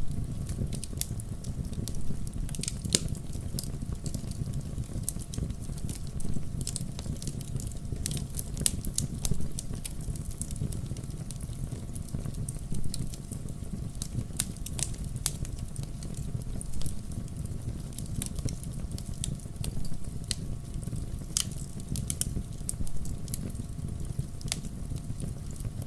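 Wood campfire burning: a steady low rumble of flames under frequent sharp, irregular crackles and pops from the burning wood.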